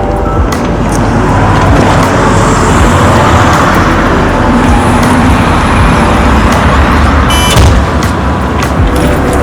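A motor vehicle's engine running steadily, with a low rumble and a few sharp clicks.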